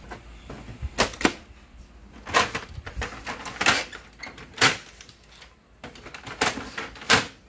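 HP Officejet Pro 8100 inkjet printer's plastic covers and paper tray being pushed and snapped shut: a string of sharp plastic clicks and knocks, about eight in all, spaced unevenly.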